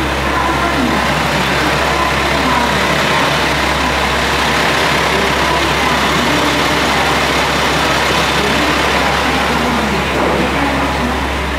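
Steady din of road traffic, with vehicle engines idling and running and faint voices underneath.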